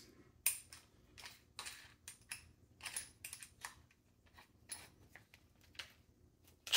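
Faint, irregular clicks and rattles of a drill bit being swapped in a cordless drill's keyless chuck as the chuck is turned by hand, with a louder clatter right at the end.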